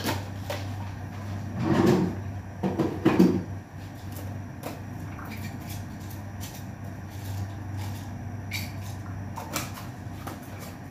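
Kitchen handling clatter: a glass spice jar and its lid knocked and handled, with a few loud knocks in the first few seconds, then light scattered clicks. A steady low hum runs underneath.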